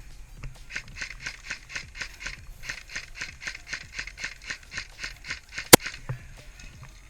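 Running footsteps crunching on the ground, about four strides a second for roughly five seconds, ending with a single sharp click.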